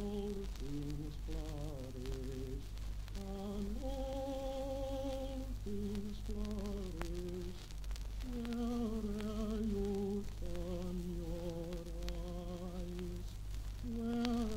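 A single voice singing a slow melody of held, wavering notes, played back from a 1952 Emidisc 78 rpm home-recording disc on a turntable. A steady low hum and scattered clicks from the old disc lie under it.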